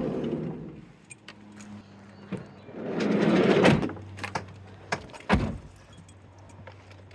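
A van's sliding door: a rolling swish about three seconds in, a few small clicks, then a sharp knock as it shuts.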